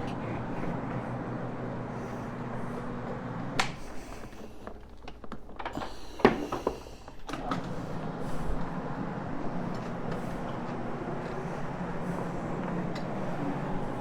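Electric carpet-cleaning machine motor running with a steady hum; about a third of the way in a knock is heard, the hum drops back for a few seconds with several sharp clicks and knocks, then it runs steadily again.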